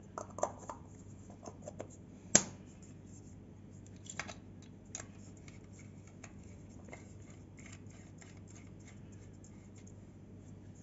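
Small plastic clicks and taps from an LED bulb being put back together by hand: a sharp snap about two seconds in as the frosted diffuser dome is pressed onto the base, then lighter clicks and scrapes as the bulb is screwed into a plastic lamp holder.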